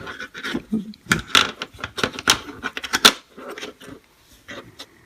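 Irregular clicks and taps of plastic Play-Doh tools being handled and set down on a tabletop while clay is worked, several a second.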